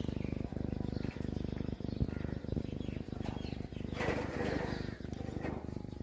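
Alexandrine parakeets pecking at chopped green chilli: soft, irregular clicks over a steady low hum, with a short rustling flutter about four seconds in.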